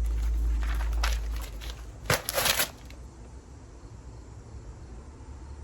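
Paper of a thin phone book crinkling and rustling as it is gripped and twisted, with a louder burst of crackling paper about two seconds in.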